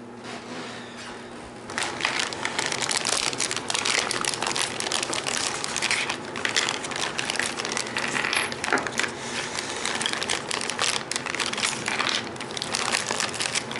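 Plastic fender and its packaging being handled: continuous crinkling and crackling with many small clicks and rattles, starting about two seconds in.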